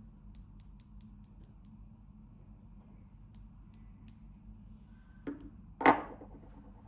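Light clicks and ticks of art markers being handled, with a short knock about five seconds in and a louder clack just after it.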